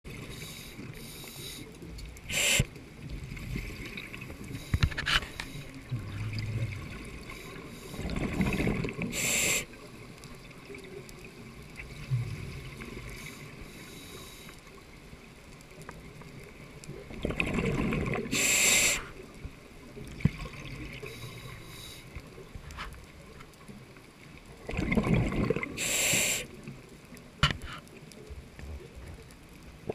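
Scuba diver breathing through a regulator underwater: three breaths about eight seconds apart, each a rumble of exhaled bubbles with a sharp hiss, over a faint steady underwater hiss with a few small clicks.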